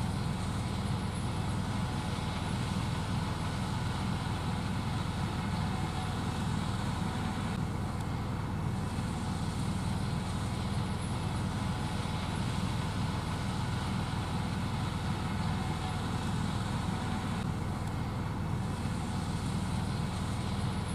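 Gleaner S78 combine running steadily while harvesting corn: a continuous low machinery drone.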